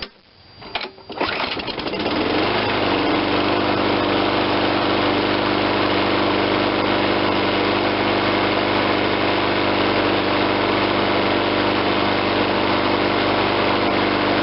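Briggs and Stratton 6.25 single-cylinder four-stroke mower engine started cold on its newly replaced carburetor. The recoil starter is pulled about a second in, the engine catches, speeds up, and then runs steadily.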